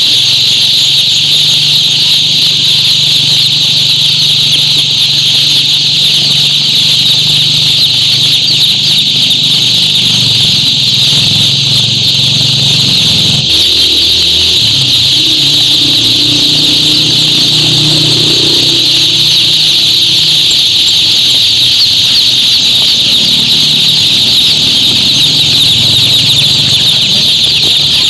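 Dense, steady, high-pitched chorus of many day-old male chicks peeping inside stacked cardboard chick boxes, with a low hum underneath.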